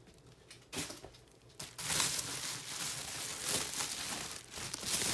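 Bubble-wrap packaging crinkling as it is handled and pulled off an album. A couple of small clicks come first; the crinkling starts about two seconds in and is loudest near the end.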